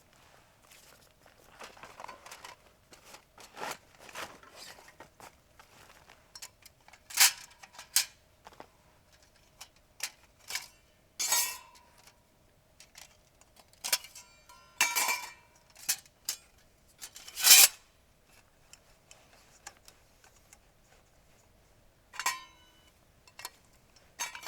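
A series of sharp metallic clinks and knocks at irregular intervals, several ringing briefly. The loudest come about seven, fifteen and seventeen and a half seconds in.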